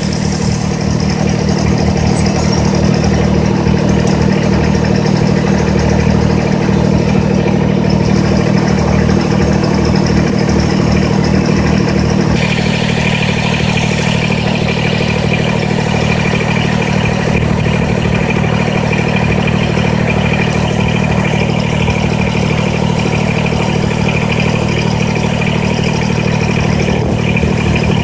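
John Deere 650 compact tractor's three-cylinder diesel engine running steadily as the tractor works a rear blade through brush. The tone of the engine shifts about twelve seconds in.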